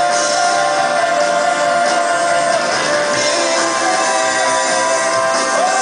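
Live band playing a rock song on guitars, keyboard and drums, with long, slightly bending held melody notes over the band.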